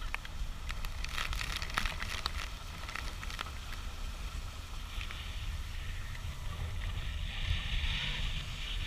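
Steady low rumble aboard a boat on the water, with scattered crackles in the first few seconds and a brief hiss near the end.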